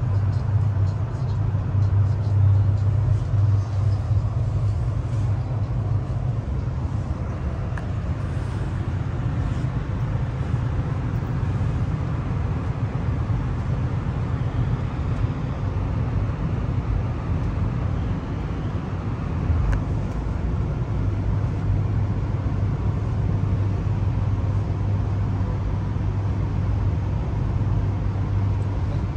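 Running noise of the VIA Rail Canadian passenger train in motion, heard inside a Skyline dome car: a steady low drone with a rumble of wheels on rail underneath. The drone eases a little in the middle and grows stronger again about two-thirds of the way through.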